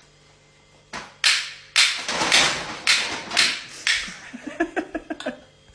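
Paper bag crinkling loudly in several bursts as a cat scrambles around inside it and out, followed by a quick run of light taps near the end.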